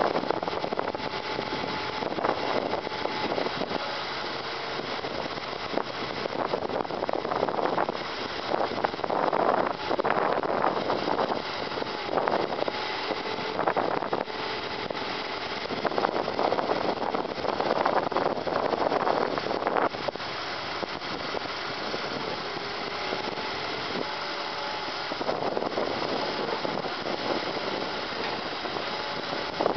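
1993 GMC TopKick bucket truck running steadily while its boom is worked, with a faint tone that steps up and down in pitch and several louder surges lasting a few seconds each.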